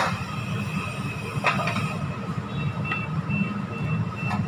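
Kitchen work sounds: a sharp clatter of utensils at the start, a knock about a second and a half in and a few faint clicks, over a steady low rumble, with a thin high whine in the second half.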